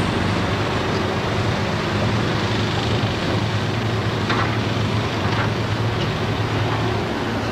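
Hydraulic excavator's diesel engine running steadily as it loads rubble into a tipper lorry, with a couple of brief knocks about halfway through.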